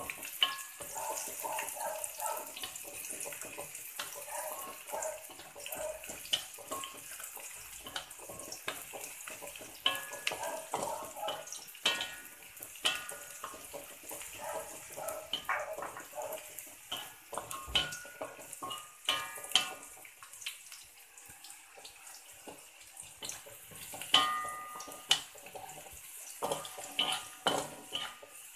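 Chopped aromatics sizzling in hot oil in a metal wok, with a wooden spatula scraping and knocking against the pan as they are stirred.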